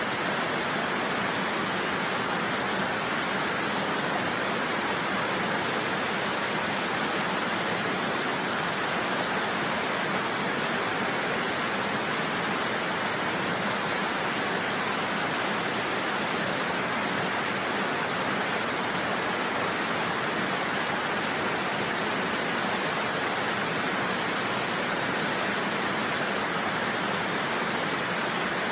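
Steady rushing water, an even, unbroken hiss with no drips or splashes standing out.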